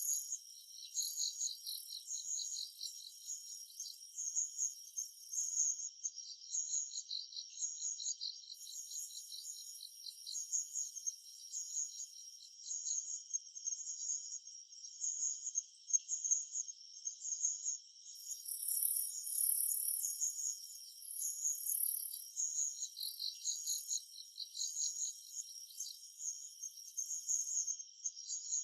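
Summer forest insect chorus: several insects calling at once, a steady high trill under rapid pulsed chirping, with a still higher shrill buzz that stops and starts several times.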